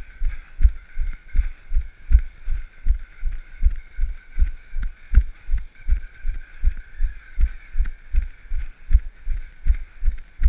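Running footsteps: even, low thuds about three a second, the footfalls of a runner jolting a handheld camera with each stride, over a faint steady hiss.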